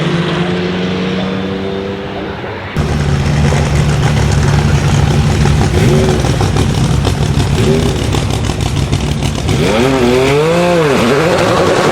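Sauber Mercedes C9's turbocharged 5.0-litre V8 running at a steady low speed. It gets abruptly louder about three seconds in, and the revs swing up and down briefly near the end.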